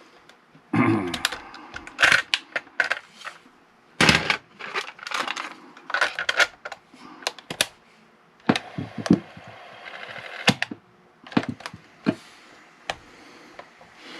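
An irregular run of sharp clicks and clunks, two dozen or so, from handling a Sony WA-55 portable cassette recorder and working its mechanical keys and switches.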